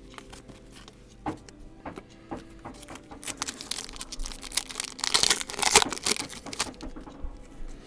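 Shiny plastic wrapper of a 2010 Topps baseball card pack being torn open and crinkled in the hands. A few light clicks come first, then a dense crinkling that is loudest a little past the middle and dies down near the end.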